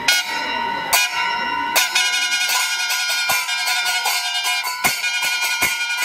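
Small brass hand cymbals (ilathalam) clashed repeatedly with a ringing metallic sound: a few spaced clashes, then a fast run of clashes from about two seconds in.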